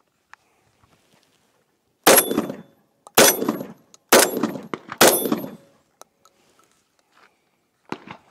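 Remington V3 TAC-13 gas-operated semi-automatic 12-gauge firing four shots of target loads, about a second apart, each with a short echoing tail. A lighter click follows near the end.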